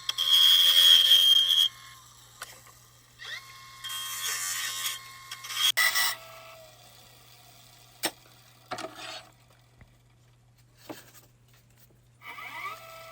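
Wood lathe spinning a cedar blank while a cutting tool scrapes and smooths it in short passes: a loud scraping for the first second and a half, another about four seconds in and a brief one near six seconds, over a low steady motor hum, with a few knocks in the quieter stretches.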